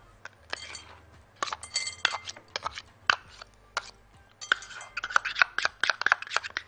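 A spoon clinking and scraping against a ribbed glass mixing bowl and a silicone cup as ketchup is scraped out. Scattered taps, one ringing clink about two seconds in, then a quick run of taps in the second half.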